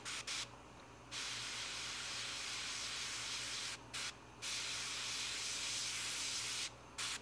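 Gravity-feed airbrush hissing as compressed air and paint are sprayed in on-off bursts: two short puffs at the start, then two long sprays of a couple of seconds each with a brief puff between, and one more short puff near the end.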